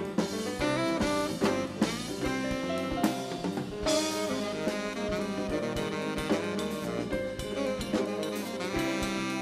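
Live jazz band playing: a saxophone carries the melody over a drum kit.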